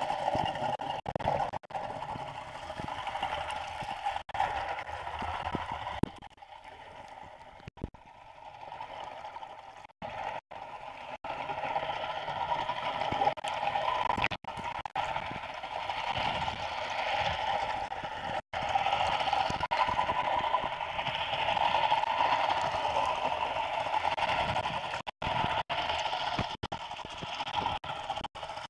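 Muffled underwater water noise through a waterproof camera housing: a steady hiss that dips for a few seconds early on and returns, broken by several brief cutouts.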